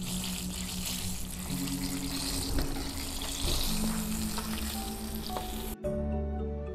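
Flour-battered chicken pieces deep-frying in hot oil in a wok, a steady dense sizzle. The sizzle cuts off suddenly near the end, leaving soft background music.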